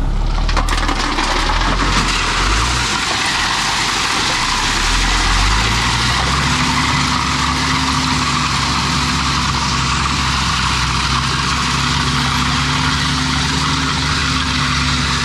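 Loaded dump truck's diesel engine running while crushed rock pours from the raised bed out the tailgate in a steady rush. About six seconds in the engine revs up and holds as the truck pulls forward, spreading the gravel.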